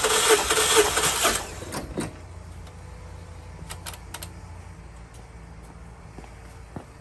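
A 2014 Mazda 3's 2.0L four-cylinder engine cranking on the starter with its spark plugs out for a compression test, with a rhythmic chug about three times a second. The cranking stops about a second and a half in, followed by a few light clicks.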